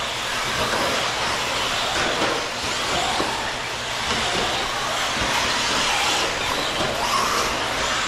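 A field of 1/8-scale electric RC truggies racing, their brushless motors whining and sliding up and down in pitch as they accelerate and brake, over a steady hiss.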